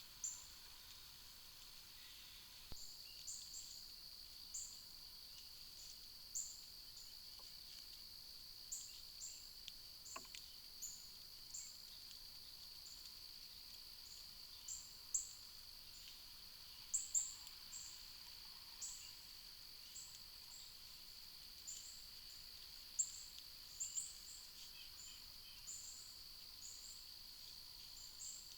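Faint outdoor backyard ambience: a steady high-pitched drone with many short, high chirps scattered irregularly throughout.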